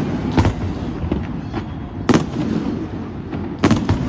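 Aerial fireworks bursting: sharp bangs about half a second in, a loud one about two seconds in, and a quick run of three or four near the end, over a continuous low rumble of more distant reports.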